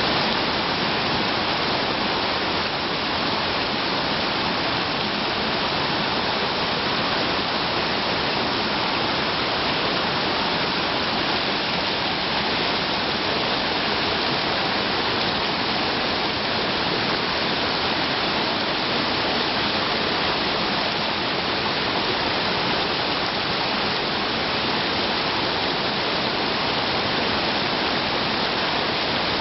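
Mountain stream flowing, a loud, steady wash of water noise that holds even throughout.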